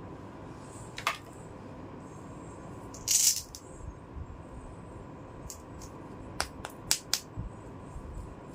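Small plastic toy pieces being handled: a click, a brief rattle, then a quick run of sharp clicks as the hard plastic parts tap against each other.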